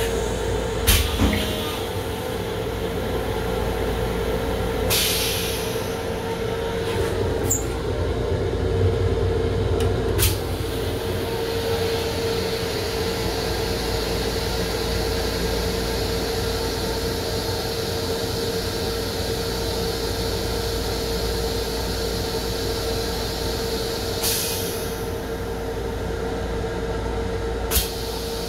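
Interior noise of a Long Island Rail Road M7 electric railcar running, heard from inside its restroom: a steady low rumble with a constant hum. It is broken by a few sharp clicks and two brief hisses, one about five seconds in and one near the end.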